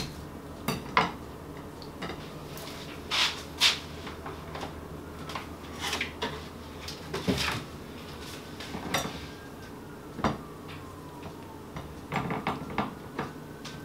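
Scattered clinks, knocks and clatter of dishes, bowls and a knife being handled and set down on a kitchen counter.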